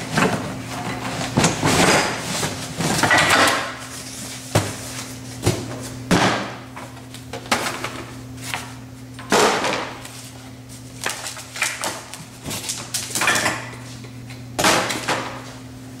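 Irregular knocks, bumps and scrapes as the boxed hydraulic cart kit is handled and worked loose on a table, with a steady low hum underneath.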